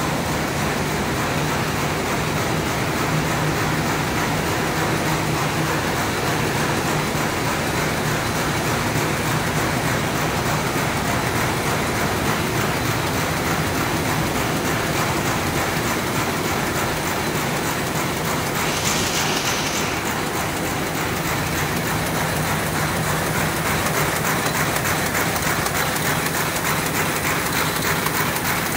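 Automatic paper bag making machines running: a loud, steady, dense mechanical clatter. A short hiss comes about two-thirds of the way through.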